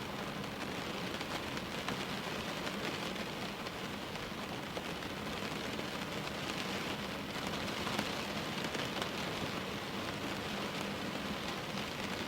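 Steady rain falling and pattering on surfaces by a window, with occasional separate drop ticks.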